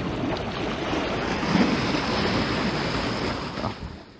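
Ocean surf washing in, a steady rushing noise that fades out near the end.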